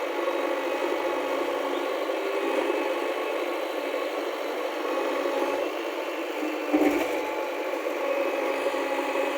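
Diesel engine of heavy machinery running steadily, with a single knock about seven seconds in.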